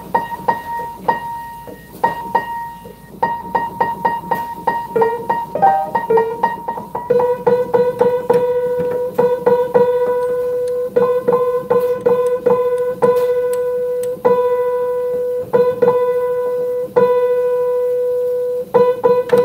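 Upright piano being tuned: a single treble key struck hard over and over while the tuning hammer sets its pin. At first a high note is struck in quick repeated blows; from about seven seconds in, a note an octave lower rings out together with it, struck about once a second, as the octave is checked.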